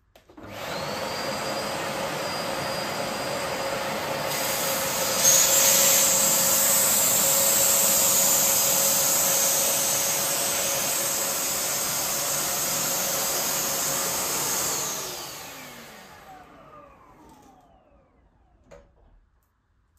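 Canister vacuum cleaner switched on, running steadily with its suction through a mesh sleeve over the tube end, louder for a while from about five seconds in. Near the end it is switched off and winds down with a falling whine.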